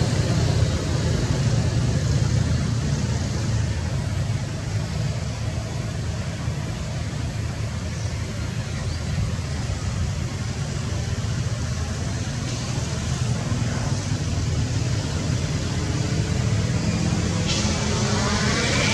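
A steady low rumble of background noise, with a fainter hiss above it.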